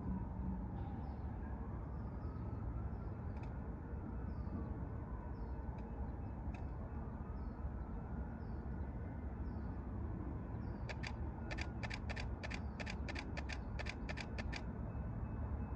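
Trackside ambience before a train arrives: a steady low rumble with a small bird chirping over and over. Partway through comes a rapid run of about a dozen sharp clicking notes, roughly four a second, which stops after about four seconds.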